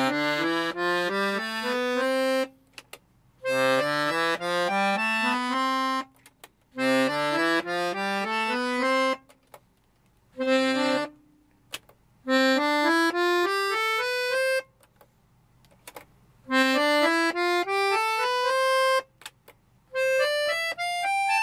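Piano accordion playing rising scale runs on its right-hand keyboard, in about seven short phrases with pauses of about a second between them, the last run ending on a held high note. The runs demonstrate its registers, which switch in low, middle and high reed sets or mix them.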